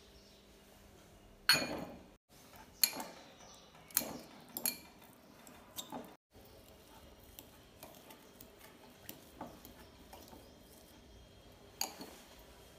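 Boiled potatoes knocking into a glass bowl, then a metal fork clinking and scraping against the glass as they are mashed. There are several sharp knocks in the first five seconds, lighter ticks while the mashing goes on, and one more knock near the end.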